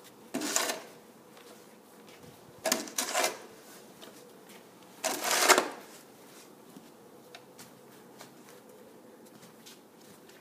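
Shovel blade scraping along a snow-covered concrete driveway as snow is pushed aside, three separate scrapes about two and a half seconds apart.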